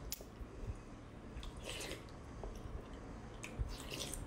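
Close-up mouth sounds of eating a soft, oily bread: biting and wet chewing, with short louder smacks near the start, about two seconds in and again near the end.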